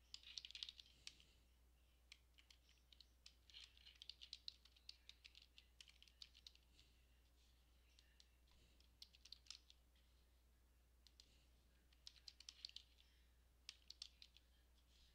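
Faint computer keyboard typing in irregular bursts with short pauses, as text is entered into form fields.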